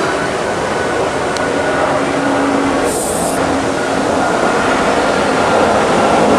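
Steady roar of a jet airliner passing overhead, dense and even throughout, with a brief high hiss about three seconds in.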